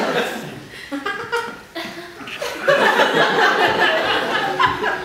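Audience laughing, dying down and then swelling again about halfway through.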